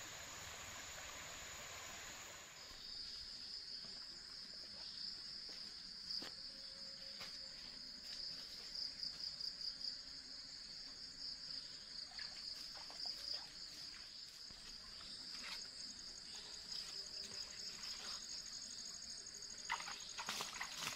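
Insects trilling steadily in a high, pulsing chorus that comes in suddenly a couple of seconds in, after a steady hiss. Scattered light clicks and rustles run under the trill and grow busier near the end.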